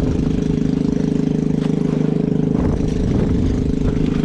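Small boat engine running steadily with a fast, even putter; its note shifts slightly about two and a half seconds in.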